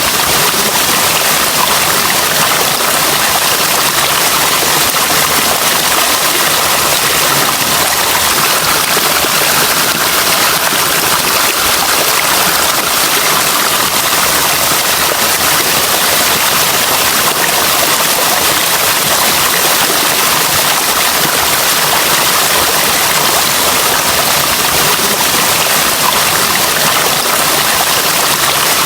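Running water flowing steadily, an even, unbroken rush with no pauses or changes.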